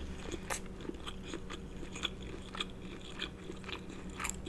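A person chewing a mouthful of seafood with lips closed, close to the microphone: soft, wet mouth clicks and smacks, about three a second and uneven.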